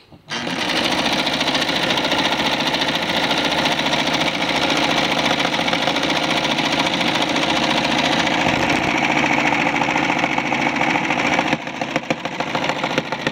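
Pfaff 130 sewing machine running at speed on its electric motor, with a loud steady clattering whose cause the owner can't identify. He supposes the long-stored machine needs oiling, cleaning and adjusting. Near the end it drops to a quieter run with distinct, evenly spaced ticks.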